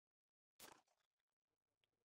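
A single suppressed .300 Blackout subsonic rifle shot about half a second in: one sharp crack with a short echoing tail.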